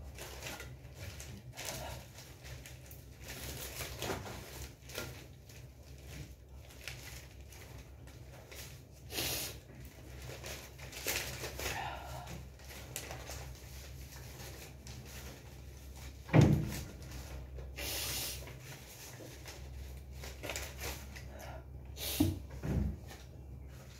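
Stacks of thin paper slips rustling and crinkling as they are picked up, riffled and sorted by hand, with a few dull thumps as bundles are set down, the loudest about two-thirds of the way through.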